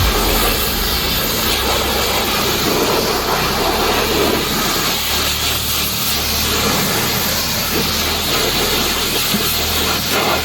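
Pressure washer spraying water in a steady hiss, with a low hum running underneath.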